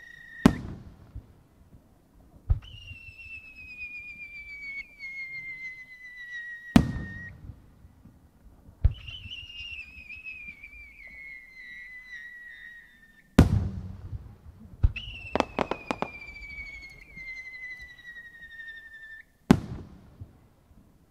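Aerial firework shells launched one after another. Each climbs with a long whistle that slowly falls in pitch, then bursts with a loud bang: four bangs about six seconds apart.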